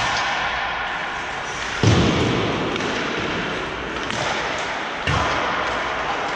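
Two heavy thuds against the rink boards, about two seconds and about five seconds in, each ringing briefly, over the steady echoing noise of a hockey game in a large rink.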